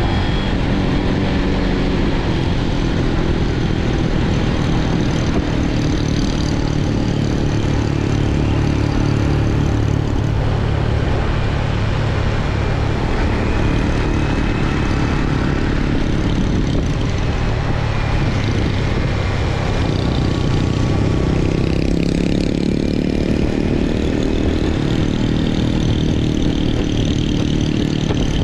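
Motorcycle engine running while riding, its note rising and falling with the throttle, over steady wind rush on the bike-mounted microphone.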